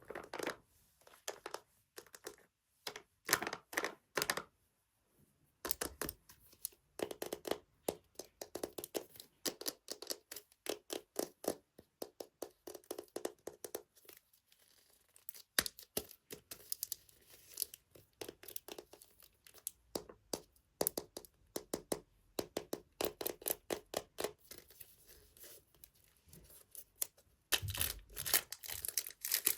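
Blind-bag toy packaging being torn open and crinkled close to the microphone: rapid crackling and scratching with occasional taps, sparse at first and densest and loudest near the end.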